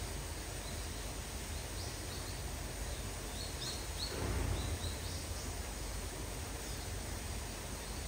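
Outdoor background noise with faint, short high chirps of small birds scattered through the middle, and a brief louder low rush about four seconds in.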